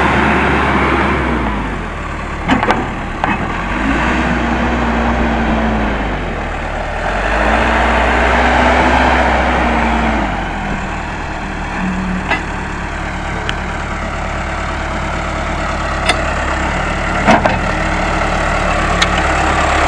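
Case 580M backhoe loader's diesel engine running under work, its speed rising and falling twice, with several sharp metallic clanks scattered through.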